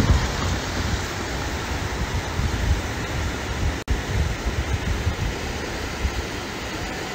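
Muddy floodwater rushing steadily down a wadi in spate after heavy rain, with wind buffeting the microphone in low gusts. The sound cuts out for an instant about four seconds in.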